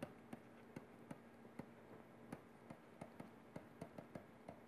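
Near silence with faint, irregular ticks of a stylus writing on a pen tablet.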